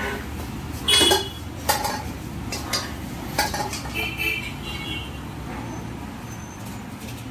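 Metal ladle clanking and scraping against a steel wok during stir-frying, about half a dozen sharp clanks in the first five seconds, some ringing briefly, the loudest about a second in, over a steady low rumble.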